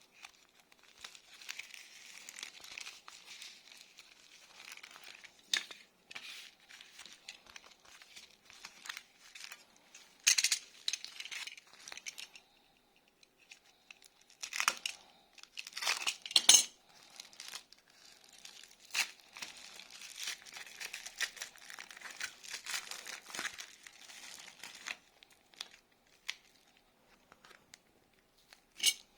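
Packaging crinkling and tearing as a parcel is unwrapped by hand, with scattered sharp clicks and knocks and a brief lull about halfway through.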